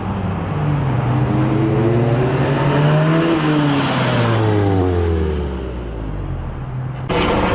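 Exhaust of a VW Mk7 GTI's turbocharged 2.0-litre four-cylinder, run with a Becker downpipe and resonator delete, as the car accelerates and goes past. The engine note climbs in pitch, is loudest around the middle, then falls away.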